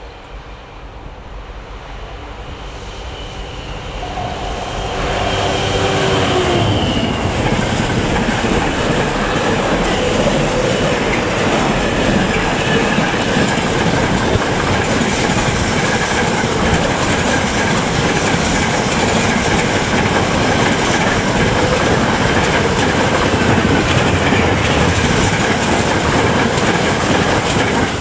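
Container freight train passing close by: the locomotive's engine note builds as it approaches and goes past in the first several seconds, then a long, steady, loud noise of the container wagons' wheels rolling along the rails.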